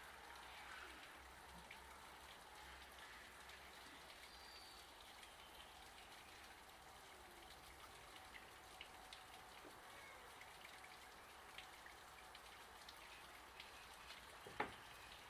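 Near silence: faint outdoor room tone with scattered small ticks and one sharp knock near the end.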